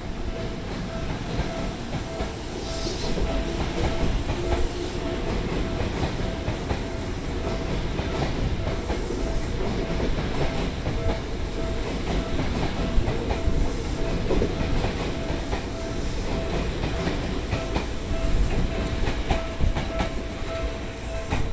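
Tokyo Metro 7000 series electric train pulling out of the station and running past, its wheels clattering over rail joints, with a steady hum from the train. A short hiss about three seconds in.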